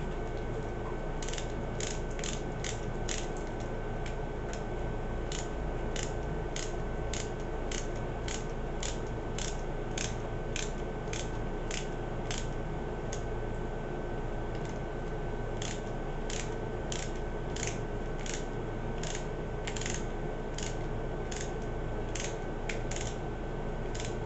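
Screwdriver driving self-tapping screws into a plastic RC gearbox housing: a long run of sharp clicks, roughly one or two a second, with a pause of about two seconds past the middle.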